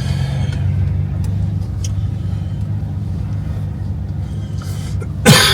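Pickup truck running and rolling slowly over a rough pasture track, heard inside the cab as a steady low drone. A short, loud noise comes near the end.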